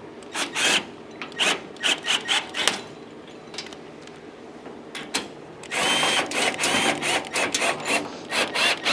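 Ratchet wrench tightening a caster's locking nut on a steel welding cart: runs of quick ratcheting clicks, a lull of about three seconds in the middle, then a longer, denser run of clicking near the end.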